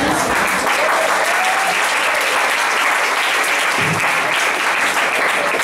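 Audience applauding steadily at the close of a school play.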